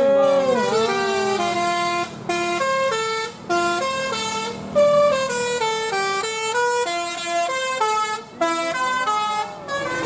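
A tour bus's Basuri 'telolet' musical horn opens with a wailing siren-like glide, then plays a tune in short stepped notes that run one after another, with brief pauses between phrases.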